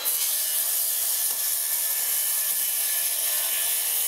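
Makita 36-volt cordless circular saw running at full speed and cutting through a vinyl stacked-stone siding panel, a steady loud cutting noise with a strong hiss as the blade is pushed along the panel.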